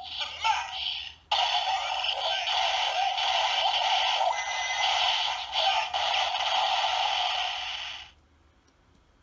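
DX Gashat Gear Dual toy sounding through its small, tinny speaker. A short electronic voice call comes first, then from about a second in a dense electronic music and effects jingle plays, cutting off shortly before the end.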